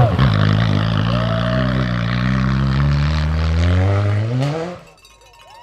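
Rally car engine at full throttle, its note dipping and then climbing steadily in pitch as it accelerates, over a steady hiss. A sharp pop near the end, then the sound cuts off suddenly.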